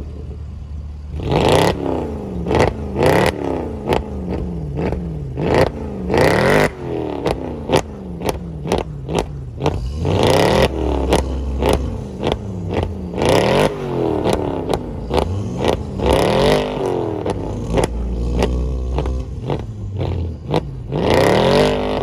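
A Volkswagen Golf R and a Mercedes C63 AMG revved while standing still: a string of quick throttle blips, each rising and falling in pitch, with sharp exhaust pops and cracks between them and a longer, higher rev near the end.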